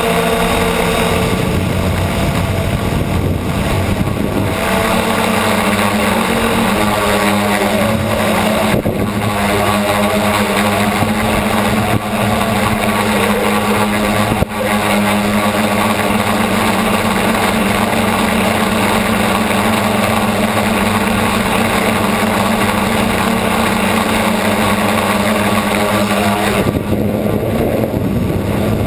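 Motors and propellers of a camera-carrying model aircraft in flight, a loud steady buzz of several pitches over a rushing hiss. The pitches shift as the throttle changes, about a second and a half in, again around four seconds in, and near the end.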